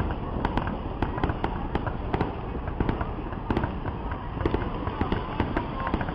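Fireworks display: a rapid, irregular string of bangs and pops, a few a second, over a constant low rumble.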